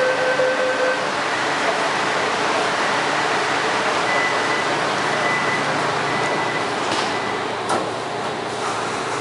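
Bombardier rubber-tyred metro train of Taipei's Wenhu line running between stations, a steady rushing noise. A thin high whine comes in for a couple of seconds around the middle, and a few light knocks come near the end.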